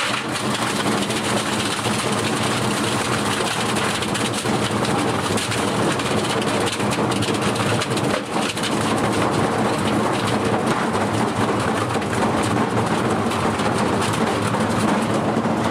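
Washing machine running a hard spin, with a steady motor hum under continuous loud rattling and clattering as the machine shakes.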